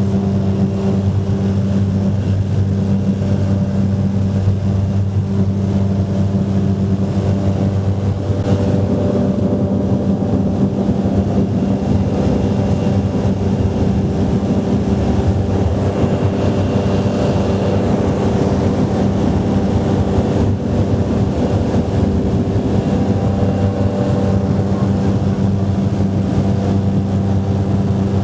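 Ski plane's propeller engine running steadily in flight: a constant, even low drone with no change in pitch.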